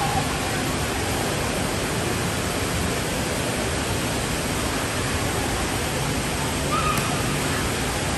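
Steady rush of spraying and splashing water in a large indoor water park hall, with faint distant voices.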